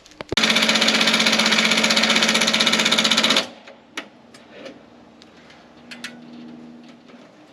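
Power screwdriver driving a screw for about three seconds, with a fast rattling rhythm, then stopping suddenly; a few light knocks follow.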